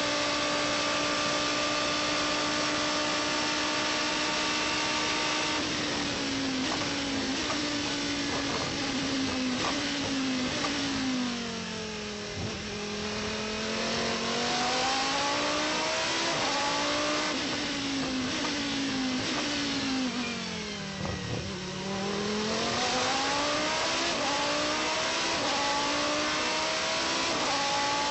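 Pescarolo 01's Judd V10 race engine heard onboard. It holds high, steady revs, then drops in steps through the downshifts under braking from about six seconds in, reaching its lowest near the middle. It climbs through the gears, falls again through another braking zone to a low point a few seconds before the end, then accelerates hard through the gears again.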